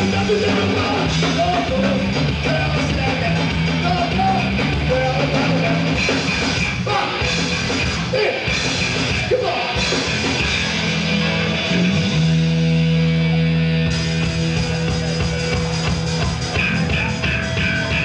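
Live garage punk band playing an instrumental passage on electric guitars, bass and drums, with a chord held for a couple of seconds about twelve seconds in.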